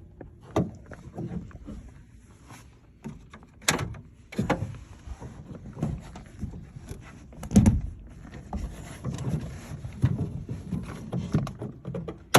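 Irregular clicks, knocks and rattles of hands working the door lock mechanism inside a 2006 Honda Civic Si door with its trim panel off, turning the lock to unlock it and reset the alarm; the loudest clunk comes about seven and a half seconds in.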